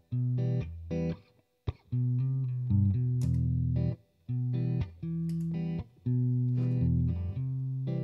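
Solo electric guitar, a Telecaster-style solid-body, playing the song's intro: chords and picked notes in short phrases that stop abruptly every second or two, with brief silent gaps between them.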